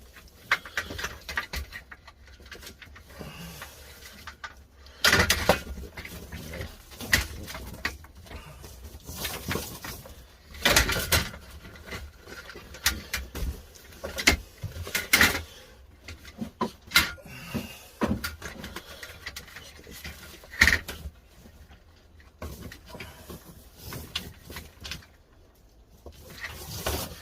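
Irregular clicks, knocks and rustling from handling a plastic LED batten light fitting and its wiring, with several sharper knocks scattered through.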